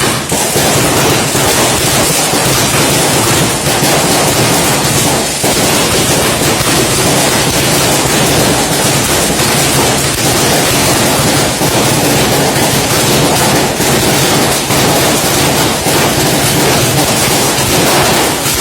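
Firecrackers going off in a dense, unbroken crackle, the reports running together.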